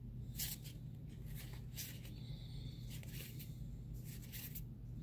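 Faint rustling and crinkling of a Magic: The Gathering booster pack's foil wrapper and its cards being handled, in several short bursts over a low steady room hum.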